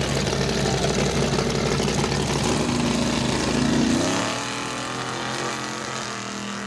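Lifted full-size pickup truck's engine revving up under hard acceleration, its pitch climbing. About four seconds in it drops to a quieter, steadier engine drone.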